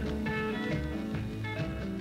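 Instrumental background music led by guitar, with a steady bass line.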